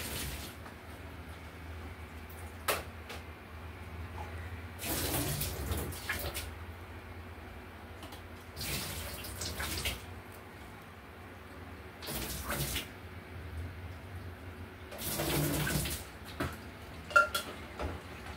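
Kitchen tap at a stainless-steel sink running in several separate bursts of water as dishes are rinsed, with clinks of crockery and utensils. A sharp clink near the end is the loudest sound.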